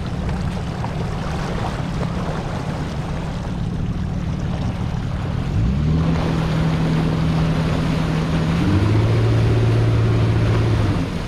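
Bass boat's outboard motor running at low speed, with water and wind noise. About halfway through its pitch rises and holds, then shifts again a few seconds later, as the throttle is worked near the ramp.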